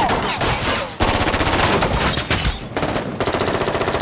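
Automatic rifles firing in rapid, continuous strings of shots: a film shootout's gunfire sound effects.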